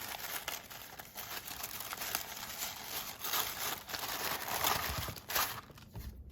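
Paper and packaging crinkling and rustling as craft papers and stickers are handled, in a steady stream of small crackles that stops shortly before the end.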